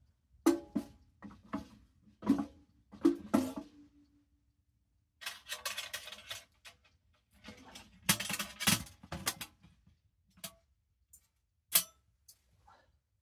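Hard items clinking and knocking as they are handled and set down, several with a short ringing tone, in the first few seconds. Two stretches of rustling follow, then a few single clicks.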